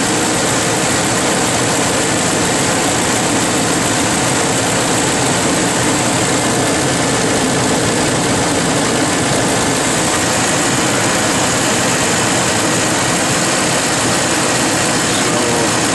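Ford F-150 engine idling steadily and smoothly with a new VCT solenoid fitted, the rough idle from the stuck solenoid cured.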